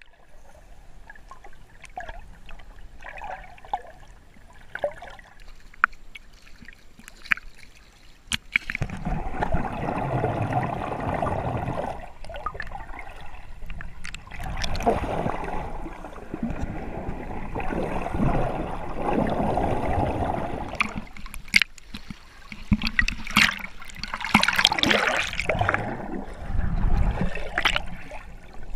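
Water sloshing and gurgling around a camera in its waterproof housing as a swimmer moves it under and at the surface, with sharp clicks and splashes. Louder, fuller stretches of splashing come and go from about a third of the way in.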